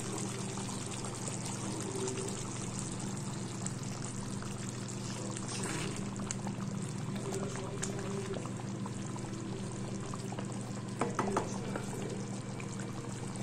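Thick shahi paneer gravy simmering in a pan, bubbling and spitting steadily as a wooden spatula stirs it, over a steady low hum. A few sharper clicks come about eleven seconds in.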